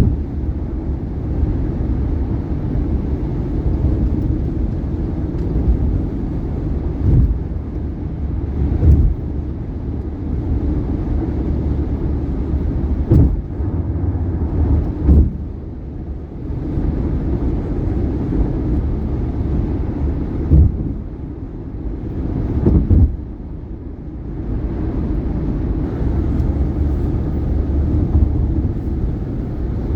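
Steady tyre and road noise from a 2018 Subaru Outback at highway speed, broken by sharp thumps as the tyres hit bridge expansion joints, seven times, often in pairs a second or two apart.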